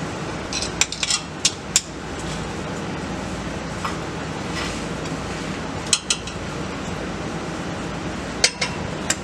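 Scattered metallic clinks and taps of tools and carrier parts being handled: a quick cluster in the first two seconds, a couple more around the middle and two near the end, over a steady background hiss.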